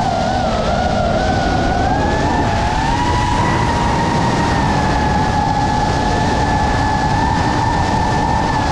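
FPV quadcopter's motors and propellers whining. The pitch dips just after the start, climbs back over the next few seconds as the throttle changes, then holds steady over a constant rush of air.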